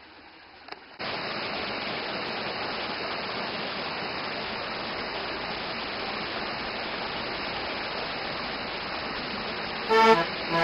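Steady rush of river water, cutting in suddenly about a second in after a faint click. Accordion music starts loudly near the end.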